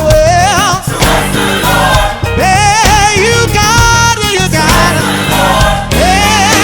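Gospel choir singing with band accompaniment, sustained sung notes with vibrato over a steady bass and drums.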